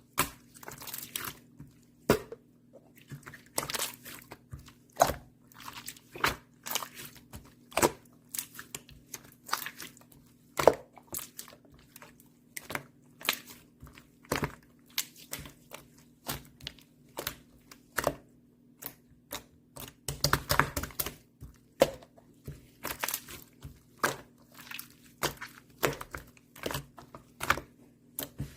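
Clear slime being handled and squeezed, giving a run of sharp, irregular clicks and pops as air pockets in it burst, with a dense flurry of them about twenty seconds in.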